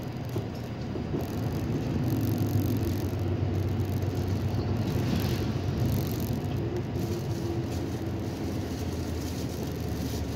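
City bus engine and road noise heard from inside the cabin as the bus drives along. It gets louder about two seconds in, then holds steady.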